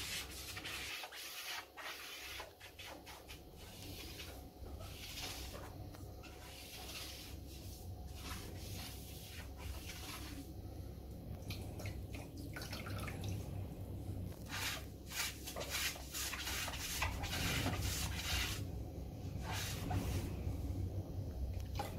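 A damp sponge rubbed over ceramic wall tiles and their grout joints in repeated wiping strokes, with short pauses between them, cleaning excess grout off the tile faces.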